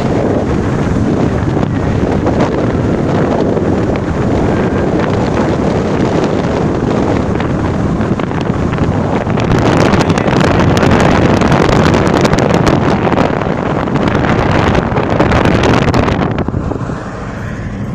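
Wind rushing and buffeting on the microphone over the road noise of a moving car. The wind grows louder and more crackly about halfway through, then falls away sharply near the end.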